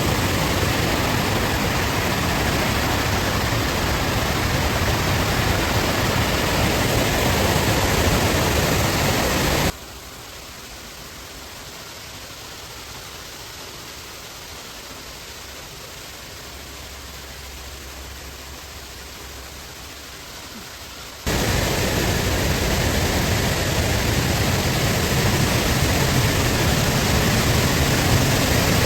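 Steady rush of a waterfall running high after heavy rain. About ten seconds in the rush drops sharply to a much quieter, even hiss for about eleven seconds, then returns just as suddenly at full strength.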